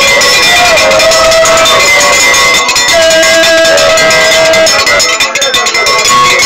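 Loud live traditional music: voices singing long held notes over dense, continuous percussion strikes and clatter.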